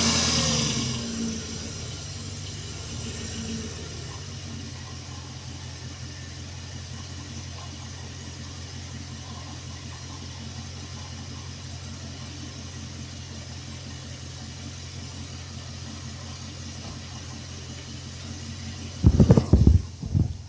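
Jeep 4.7-litre PowerTech V8 settling from a brief rev back to a steady idle. The owner hears a low-end knock from it when cold and asks whether it is rod knock. Near the end come a few loud, sharp thumps.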